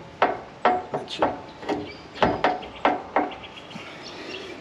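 A run of sharp metal clanks and knocks, about two a second at an uneven pace, from tools and steel parts being worked on a pickup's rear axle and leaf spring.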